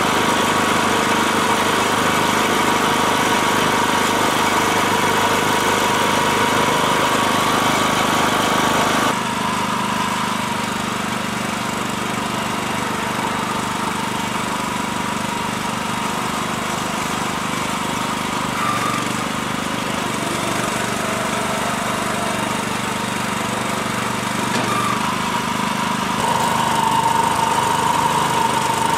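Small air-cooled single-cylinder petrol engine of a Yanmar TG162 dump carrier running steadily. About nine seconds in, the sound changes abruptly and drops a little, and it swells slightly near the end.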